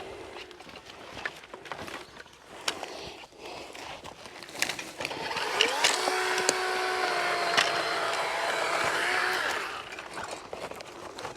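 Chainsaw revving up about five seconds in and running at speed for about four seconds, cutting wood, then dropping off. Before it come scattered light cracks and snaps.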